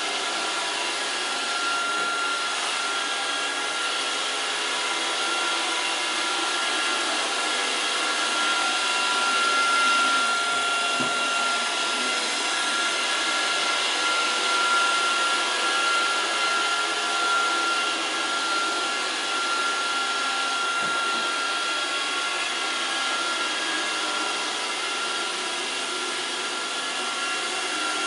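Roomba robot vacuum running steadily: an even suction hiss with a steady motor whine on top, and a faint low bump twice.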